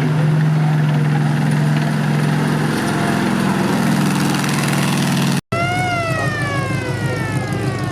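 M4A1 Sherman tank's Continental radial engine running steadily under the moving tank. After a brief dropout about five and a half seconds in, a high whine falls slowly in pitch over the running engine.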